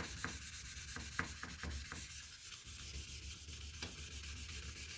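Hand wet-sanding of a plastic headlight lens with 1000-grit sandpaper, the paper rubbing over the wet lens, with a few short scratchy strokes in the first couple of seconds.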